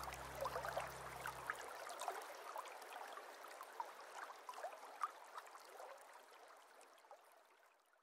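Small pump-fed waterfall in a paludarium trickling and dripping into the water, many little drips over a soft running-water hiss, fading out to silence by the end. A low music note dies away in the first couple of seconds.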